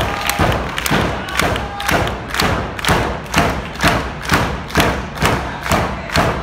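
Wrestling crowd beating out a steady rhythm in unison, about two and a half sharp thumps a second.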